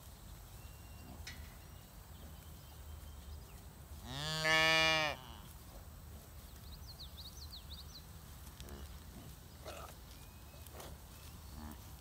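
A beefalo moos once, a single loud call lasting just over a second, about four seconds in.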